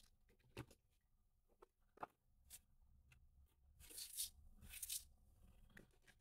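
Faint clicks and scraping of small plastic parts being handled: a few light ticks in the first few seconds, then two short scratchy rustles around the middle.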